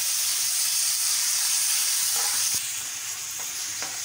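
Marinated chicken pieces sizzling in hot oil in a steel frying pan: a loud, steady hiss that drops in level about two and a half seconds in, with a knock at that moment.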